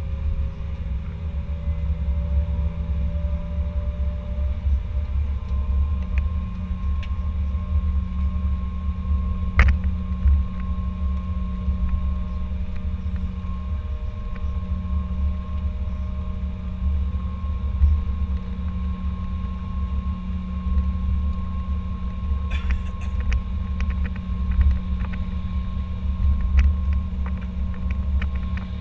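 Airbus A320 cabin noise while taxiing: a steady low rumble from the engines and rolling gear, with a few steady engine whine tones over it. A single sharp knock about ten seconds in and a few light clicks or rattles later on.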